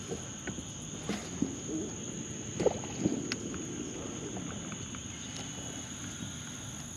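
A steady high insect hum over wind noise on the microphone, with a few light clicks and knocks in the first half as a baitcasting reel is worked.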